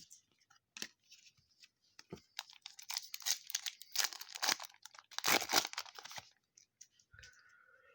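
A foil trading-card pack wrapper being torn open and crinkled, in two long rustling tears about two and a half and five seconds in, with light clicks of cards and wrapper being handled around them.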